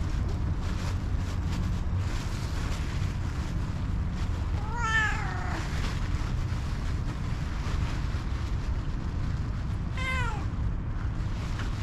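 Calico cat meowing twice: a longer, wavering meow about five seconds in and a shorter, falling one near the end, a hungry cat asking for food. A steady low rumble runs underneath.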